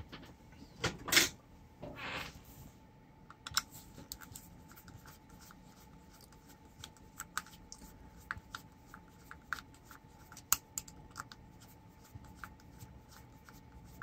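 Small scattered clicks and scrapes of a screwdriver working at the screws of a clear plastic hospital-grade mains plug, with a couple of louder knocks and a short rustle of the cord being handled in the first two seconds.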